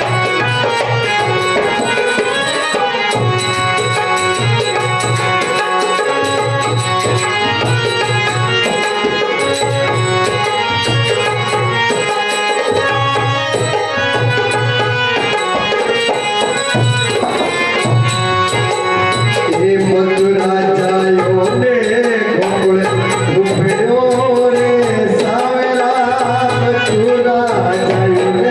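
Devotional bhajan music: a steady tabla-style drum beat under melodic instruments, with a wavering melody line, likely a voice, coming in about two-thirds of the way through.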